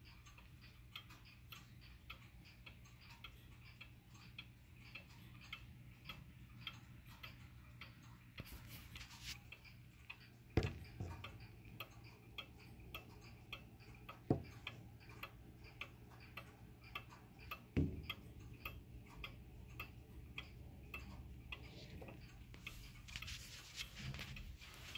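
President chime wall clock's mechanical movement ticking steadily, with three louder knocks about ten and a half, fourteen and eighteen seconds in.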